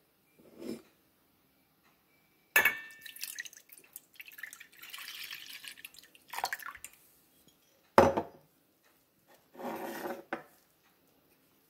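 Milk poured into a stainless-steel saucepan in a steady stream for about two seconds, between a ringing metal knock of the pan on the counter and a sharp knock about eight seconds in, with a short splash of liquid near the end.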